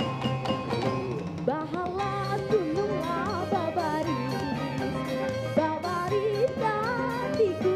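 Live performance of a Banjar folk song by a band with violin, cello, guitar and drum kit: a wavering melody line over a steady bass and beat.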